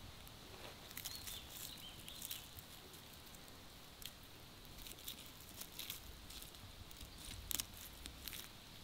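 Faint crackling and scraping as a wooden stick peels back the charred, crisp skin and scales of a barramundi baked on fire coals, with scattered small clicks, the sharpest about seven and a half seconds in.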